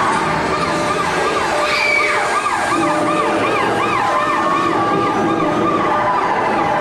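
Overlapping emergency sirens from the ride's effects soundtrack, yelping up and down about three times a second, over a steady loud rushing noise.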